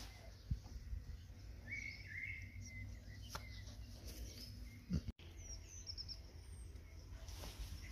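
Songbirds chirping now and then over steady low background noise, with a short knock about half a second in.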